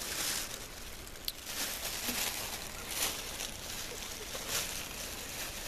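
Soft intermittent rustling and handling noise from a bag being held open and filled with cut mushrooms, with one short sharp click about a second in.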